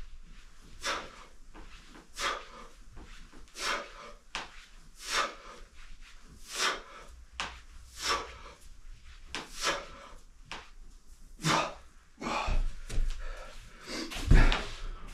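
A man's forceful exhalations, one short hard breath about every second and a half, in time with the repetitions of a Russian twist ab exercise. Near the end the breaths give way to rustling movement and a dull thump.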